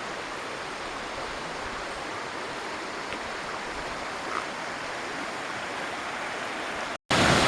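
Water falling and rushing down a cascade on a mountain creek: a steady, even roar. Near the end it cuts out for an instant and comes back louder.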